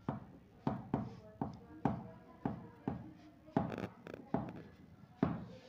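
Chalk writing on a blackboard: a string of sharp taps and knocks, about two or three a second, as each letter stroke strikes the board.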